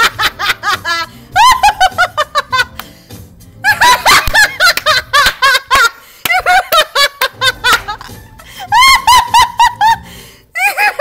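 A woman laughing hard: about four long fits of rapid, high-pitched laughter with short breaks for breath between them.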